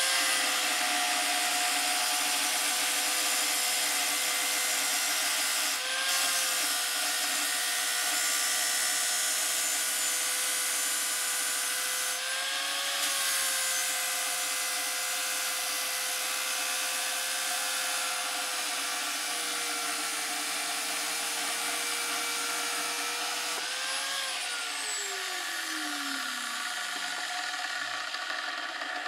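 Electric abrasive chop saw running and cutting through square steel tubing: a steady motor whine under the harsh grinding hiss of the cutoff wheel, its pitch wavering briefly a few times as the load changes. Near the end the motor is switched off and winds down with a falling whine.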